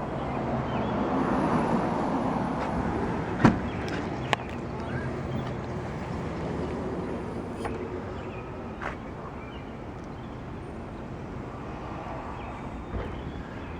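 Outdoor traffic background: a vehicle passes within the first few seconds, then the noise settles to a steady hum. Two sharp clicks about three and a half and four and a half seconds in, with fainter ones later.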